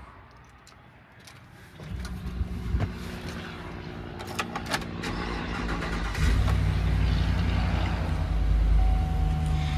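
Clicks and handling noises, then about six seconds in the 6.6-litre V8 of a 2022 Chevrolet Express 2500 cargo van is started and settles into a steady idle.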